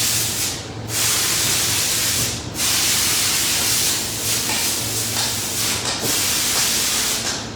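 Loud, steady hiss of rushing noise that drops out briefly three times.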